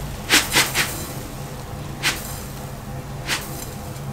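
Granulated sugar poured from a container into a glass bowl in short rushes: three quick pours just after the start, then single ones about two and three seconds in, over a steady low hum.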